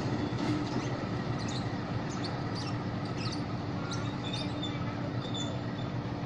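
CC 201 diesel-electric locomotive's engine running with a steady low hum. Birds chirp briefly now and then.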